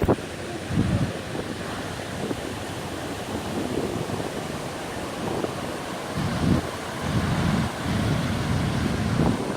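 Ocean surf washing steadily, with wind buffeting the microphone in low, gusty rumbles that come and go.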